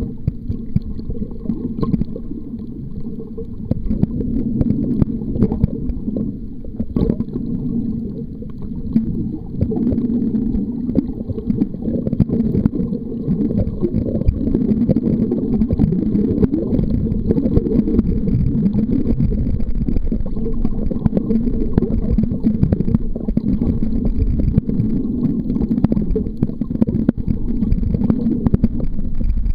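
Muffled underwater rumble and sloshing water, heard through a waterproof camera's microphone held under the surface while snorkeling. The sound is a dense low rumble with scattered faint clicks.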